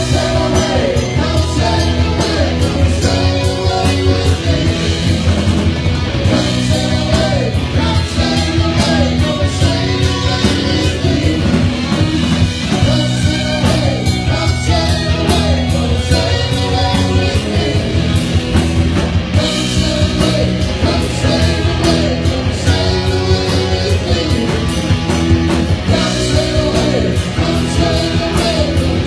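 Live rock music: a band with guitar and drum kit playing steadily, with a voice singing over it.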